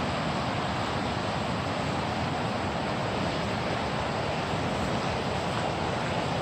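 River water rushing steadily over a fast current, an even, unbroken rush.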